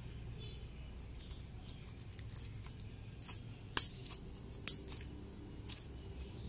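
Clear slime being kneaded and squeezed between the hands, giving a scattered series of sharp clicking pops, two of them much louder about four and five seconds in.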